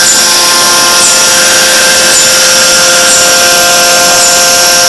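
Electric-resistance forging machine with its hydraulic press running steadily: a loud hiss with a steady multi-tone whine, and a short high chirp repeating about once a second.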